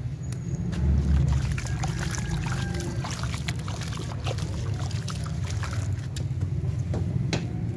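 Watery sand-cement slurry sloshing and splashing in a plastic tub as a sand-cement block is dunked and hands stir around it, with a heavy low splash about a second in and many small drips and crackles after. A steady low rumble runs underneath.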